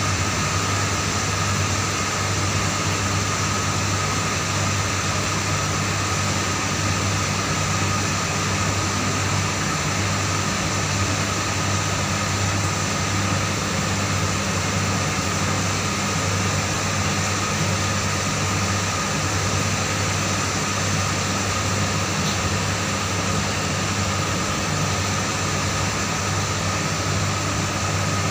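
A steady, unchanging machine hum with a low drone and a faint high tone over a constant hiss.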